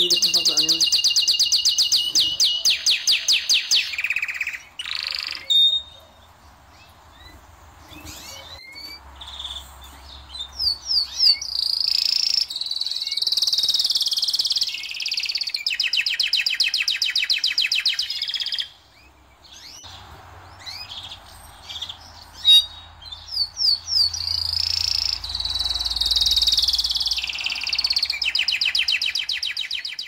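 Domestic canaries singing: song of rapid rolling trills and long held whistled notes, in three phrases with two short pauses between them.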